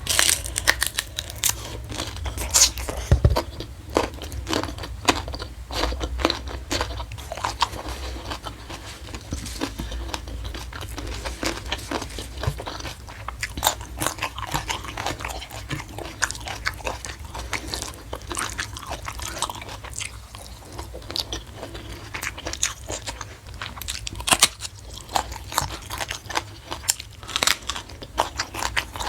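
A person chewing and crunching mouthfuls of food close to the microphone, with a steady run of sharp, wet crunches and clicks.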